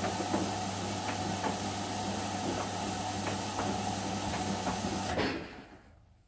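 Bendix front-loading washing machine tumbling a full load in the wash of a 40° cotton cycle: a steady motor hum with the hiss and swish of water and clothes and light knocks as the load drops. About five seconds in the motor stops and the sound dies away quickly, leaving near silence.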